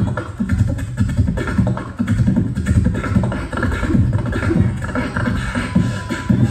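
A man beatboxing into a handheld microphone: a fast, unbroken run of low, punchy mouth-made beats, several a second.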